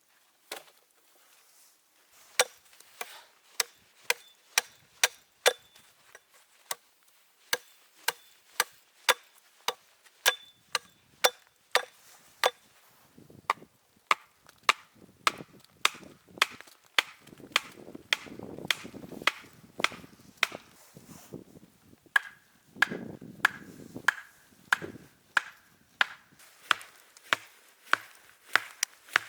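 Steady chopping of wood, sharp blows about two a second, some with a brief metallic ring. Softer rustling between the blows in the middle.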